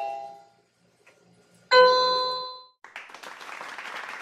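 Electronic floor-piano mat sounding single notes as a cat steps on its keys: the tail of a note fades out, then one new note sounds about two seconds in and dies away. Near the end, applause begins.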